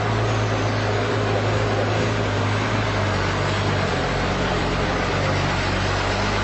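A steady low mechanical hum with an even rushing noise over it, holding unchanged throughout.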